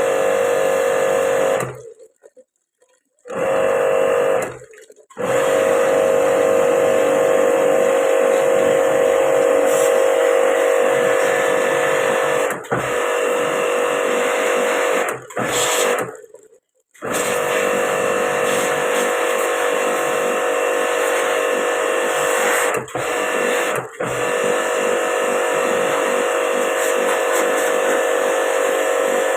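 Electric motor running with a steady hum, broken off abruptly several times and starting again.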